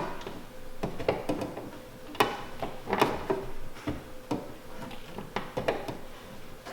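Irregular sharp clicks and light knocks of paintless dent repair tools working the sheet-metal body panels of a car, about one or two a second, over a faint steady hum.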